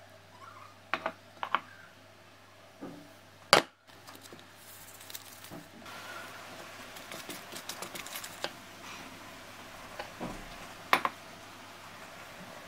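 A plastic mixing bowl being handled and stirred: a few sharp knocks against the bowl, the loudest about three and a half seconds in. Then a spatula stirs a wet batter, with soft scraping and small clicks for several seconds, and one more sharp knock near the end.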